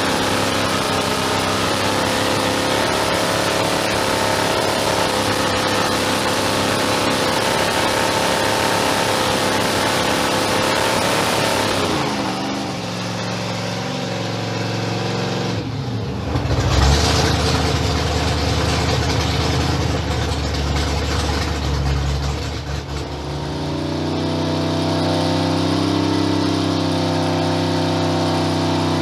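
Supercharged 565-cubic-inch big-block Chevy V8 running on an engine dyno. It runs steadily, drops to a lower speed about twelve seconds in, gets briefly louder around seventeen seconds, and settles into a different, lower-pitched steady idle for the last few seconds.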